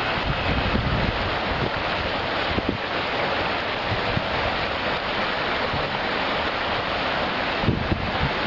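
Fast mountain river rushing steadily over stones, with a few low thumps of wind buffeting the microphone.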